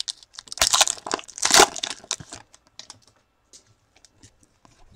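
A football trading-card pack's wrapper being torn open, with a few crinkling, tearing rasps over the first two seconds, the loudest about a second and a half in. Then faint light clicks as the cards are handled.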